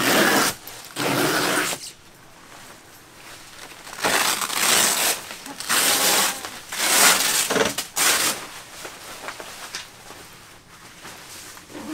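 Tent fabric of a truck camper's fold-out room being pulled down and gathered up: about six noisy bursts of rustling and pulling in the first eight seconds, then quieter handling.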